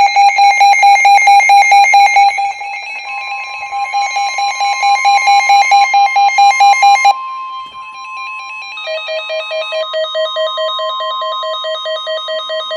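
Emergency alert receiver alarm beeping rapidly, about four beeps a second, over the steady high warning tone of a weather radio alert that comes in about three seconds in. The first beeping cuts off suddenly about seven seconds in, and a lower-pitched beeping takes over about two seconds later, as a second alert sounds.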